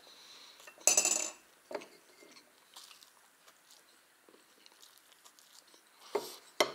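A bar of porous milk chocolate clacking and scraping against a ceramic saucer as it is handled, loudest about a second in. Near the end there are two sharp snaps as a piece is broken off the bar.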